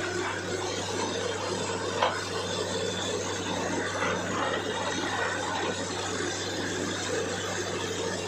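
Truck-mounted borewell drilling rig running steadily, a constant engine drone with a noisy wash over it, and a single sharp knock about two seconds in.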